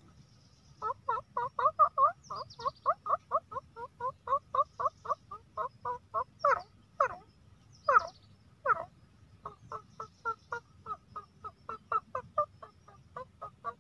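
A man's nasal imitation of a grey francolin (teetar), made with a hand cupped over the nose: a fast run of short clucking notes, about three a second, with a few longer, louder notes midway and a brief gap before it picks up again. It mimics the male partridge calling the hen to grain it has found, a call used to lure partridges.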